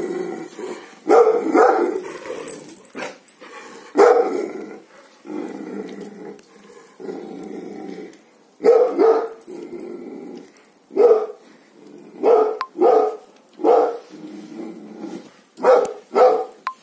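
A chained Gaddi dog barking over and over, the barks often coming in quick pairs, with growling between them.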